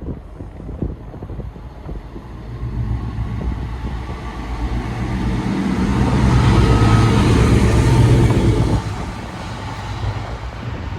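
Diesel freight locomotive running light with no wagons, passing by: its engine note builds, is loudest about six to nine seconds in, then drops away suddenly.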